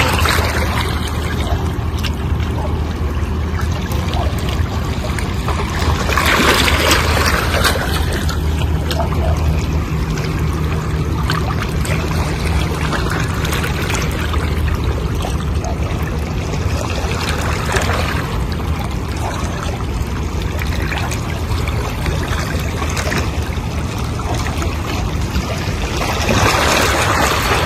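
Small waves lapping and splashing at the rocky water's edge over a steady low rumble, with louder surges about six seconds in and again near the end.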